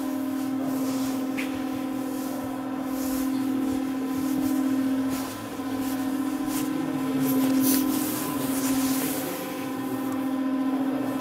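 A machine's steady hum at one fixed pitch, with a few faint clicks.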